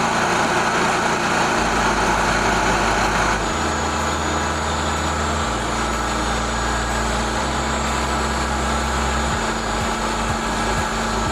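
Small gasoline engine of a portable band sawmill running steadily. Its sound eases slightly about three and a half seconds in.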